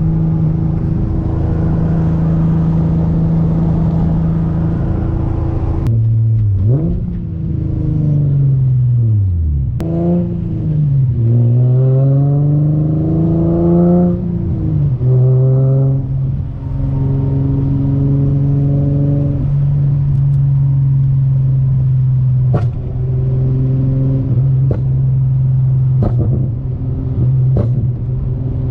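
Infiniti G35 coupe's 3.5-litre V6 heard from inside the car: it runs steadily, then about six seconds in the revs fall and climb again as the car pulls away hard, the engine note rising until a gear change about fourteen seconds in. After that it settles to a steady lower drone, with a few clicks.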